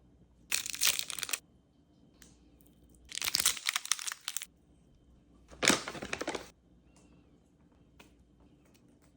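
Crinkling and tearing of cat-food packaging being handled, in three short bursts about a second long each.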